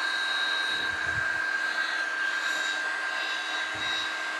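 Electric heat gun running steadily, a blowing rush with a steady whine, shrinking heat-shrink tubing over a soldered power-cord splice.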